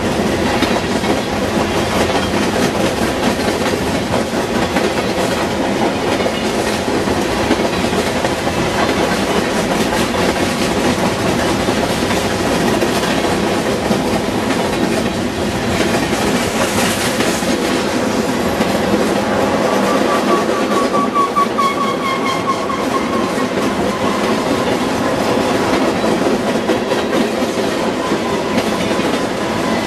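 Freight cars, covered hoppers and then tank cars, rolling past close by: a steady, loud rumble and rattle of steel wheels on the rails. A faint high-pitched squeal wavers for a few seconds about two-thirds of the way through.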